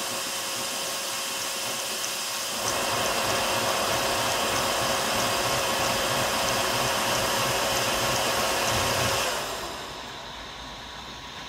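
Ender 5 Pro 3D printer rebuilt as a ZeroG Mercury 1.1, printing at high speed: the CPAP part-cooling blower hisses over the rapid stepper-motor moves of the print head. It gets louder a few seconds in, then falls away near the end.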